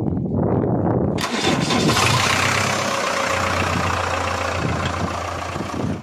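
JCB 3DX backhoe loader's diesel engine being cranked and catching about a second in, then running steadily.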